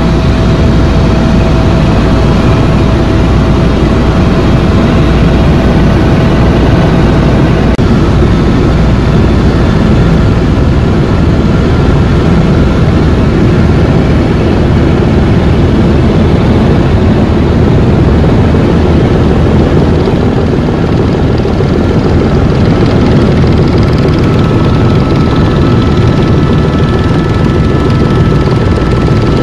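Helicopter in flight heard from inside the cabin: the engine and rotors make a loud, steady noise, mostly low. A faint thin whine runs through it and steps up in pitch about eight seconds in.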